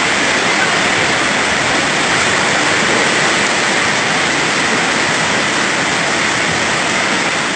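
Torrential rain and rushing floodwater: a loud, steady rush of water noise with no letup.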